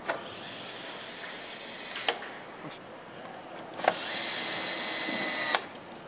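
Handheld electric power screwdriver driving screws. Its motor runs with a steady whine for about two seconds and stops with a sharp click, then runs again, louder, for about a second and a half and stops with another click.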